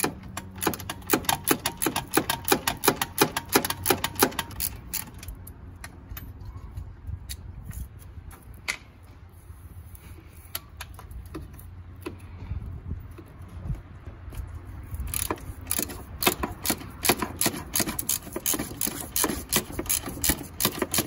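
Hand ratchet with an 8 mm socket clicking as it backs out the bolts holding an A/C condenser fan motor. There are quick runs of clicks for the first four seconds or so, sparser clicks through the middle, then fast clicking again from about fifteen seconds in, over a steady low hum.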